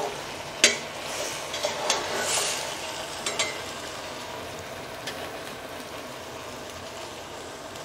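Metal spoon stirring chicken in its marinade in a steel pot, clinking against the pot a few times in the first three or four seconds, over a steady sizzle of the chicken cooking as it comes to a boil.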